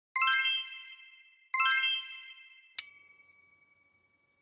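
Three chime notes, each struck and ringing away: the first two are fuller, and the third, about two and a half seconds in, is a sharper ding that rings on longest.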